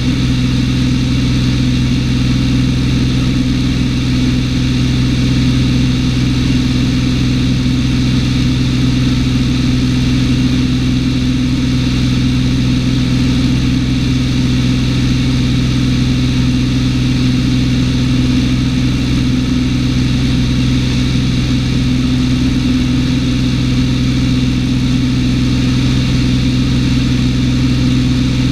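Cessna 210's six-cylinder piston engine and propeller droning steadily in flight, heard from inside the cabin: a constant low hum that holds one pitch throughout.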